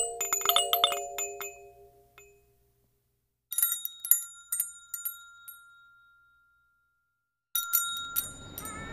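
Bright tinkling chime notes in three quick clusters, each ringing out and fading, with dead silence between them. Faint outdoor background noise comes in near the end.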